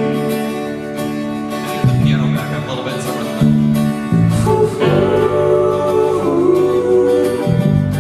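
Folk band playing live, with strummed acoustic guitar and other instruments; voices singing without clear words.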